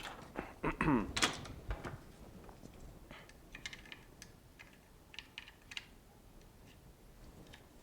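Light clicks and taps of small tools and phone parts handled on a repair bench, sparse and irregular, with a few louder knocks in the first second or so.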